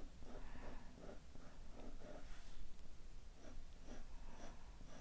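Pencil lead scratching on drawing paper in short, quick sketching strokes, about two or three a second.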